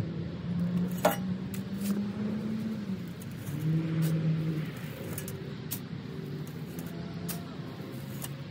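Steel shovel scraping and scooping loose soil, with a sharp clink about a second in and soil thrown into a metal wheelbarrow near the end, over the steady hum of a motor vehicle's engine.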